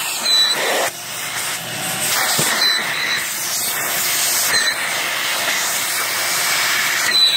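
Steady rushing hiss of air from a running electric blower tool, with a faint high whine from its motor.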